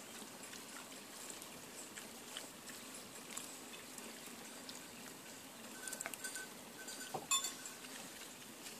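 Piglets rooting and grazing in grass: faint crunching and tearing with scattered small clicks. About six to seven and a half seconds in comes a brief flurry of sharper sounds, with a short high call and the loudest click just past seven seconds.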